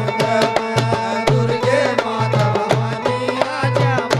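Live Indian devotional bhajan music: dholak drum played in a fast, driving rhythm under a gliding melody line, with many sharp strikes each second.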